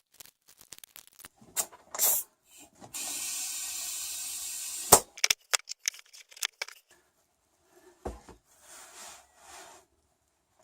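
Hands working a rubber wheelbarrow tire back onto its metal rim over a new inner tube: scattered clicks and rubbing. In the middle there is a steady hiss for about two seconds, cut off by a sharp snap.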